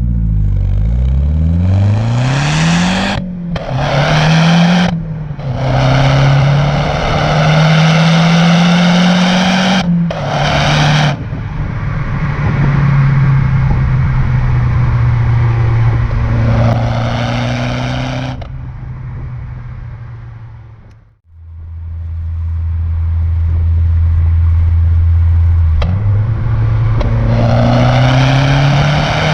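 Mazda 6 MPS turbocharged 2.3-litre four-cylinder engine accelerating through the gears. The pitch climbs and drops sharply at each gear change, holds steady for a stretch, fades away, settles to a steady low tone, then climbs again near the end.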